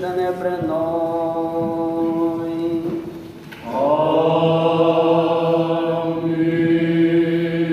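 Orthodox church chant: voices holding long, steady notes. The singing pauses briefly about three seconds in, then resumes with a lower voice holding a steady note underneath.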